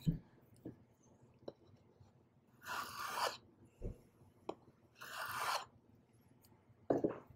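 Two strokes of a Stanley hand plane along the edge of a board, each a short shearing hiss under a second long, about two seconds apart, as it takes thin shavings to cut a bevel. Light knocks of the plane on the wood come between the strokes, with a few heavier knocks near the end.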